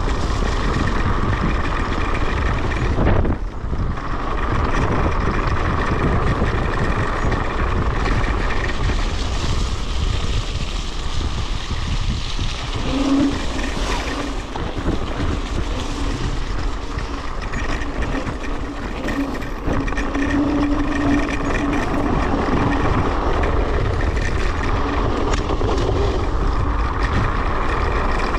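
Electric scooter ridden over a rough, muddy track: steady wind buffeting on the camera microphone and tyre rumble, with a faint motor whine. The noise dips briefly about three seconds in.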